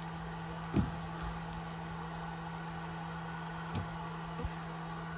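A steady low hum with a few brief soft knocks and clicks from small parts and tools being handled on a workbench; the strongest knock comes about a second in.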